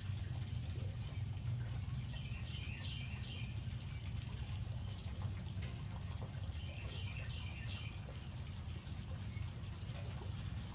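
Outdoor garden ambience with a steady low hum underneath. Over it, small birds chirp in short high notes that come in several clusters, and there are faint scattered small clicks.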